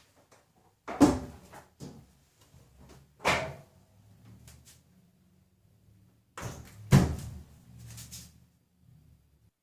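A series of sharp knocks and bangs, three of them loud, about a second in, a little after three seconds and about seven seconds in, with a few fainter knocks between.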